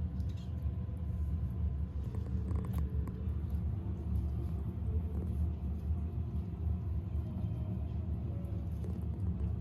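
Kitten purring close to the microphone: a steady low rumble, with one faint click near the three-second mark.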